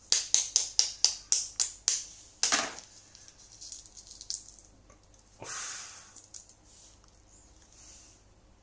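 A knife tapping the shell of a century egg to crack it: sharp taps about four a second for the first two seconds. Then fainter crackling and a brief scratchy rustle about five seconds in as the cracked shell is picked off by hand.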